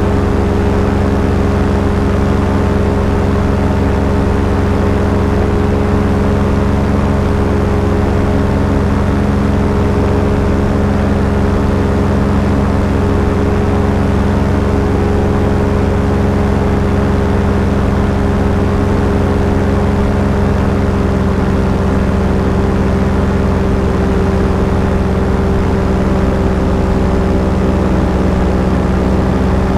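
Small aircraft's piston engine running steadily at cruise power, heard from on board, with a constant drone and rushing air noise.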